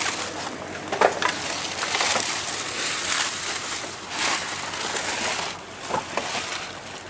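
Trash rustling and crunching as it is dug through in a dumpster, in irregular bursts: plastic bags, paper and cardboard shifted and crushed by hand.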